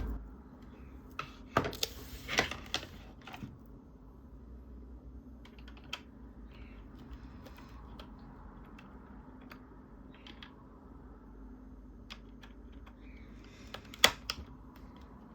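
A Cherry MX switch being fitted into a mechanical keyboard's hot-swap plate: a few sharp plastic clicks and snaps, grouped about one and a half to three and a half seconds in, with a louder single click near the end.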